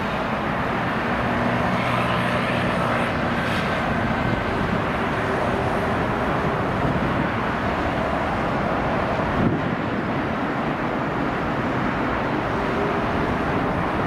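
Airbus A330-300 airliner landing and rolling out on the runway, its Rolls-Royce Trent 700 jet engines running as a steady, even noise with no letting-up.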